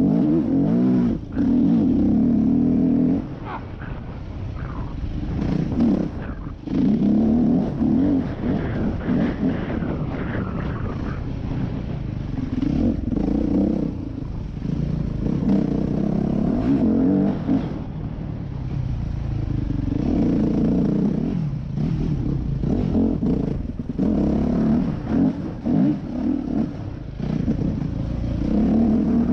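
Yamaha YZ250F's four-stroke single-cylinder engine heard on board, opening up on the throttle and dropping back off over and over. Scattered clatter and knocks come from the bike over rough ground.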